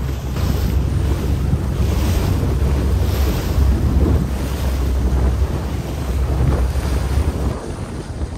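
Strong wind buffeting the microphone on a small boat under way over open sea, with water rushing and splashing along the hull. The wind rumble eases near the end.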